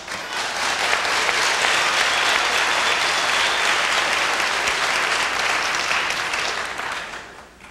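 Large audience applauding: clapping starts at once, holds steady for about six seconds, then dies away near the end.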